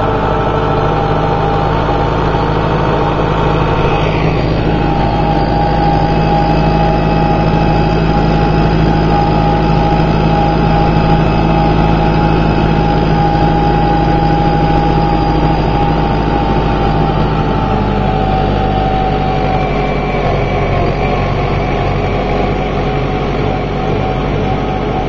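Tractor engine running steadily while the tractor drives along, heard up close from on board. A little past the middle the engine note drops slightly.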